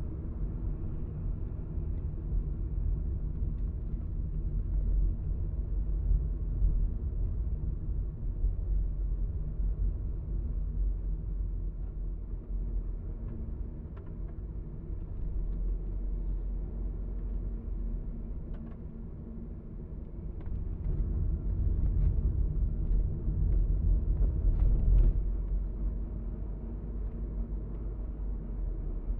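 Car driving, heard from inside the cabin: a steady low rumble of road and engine noise that swells louder for a few seconds about two-thirds of the way through.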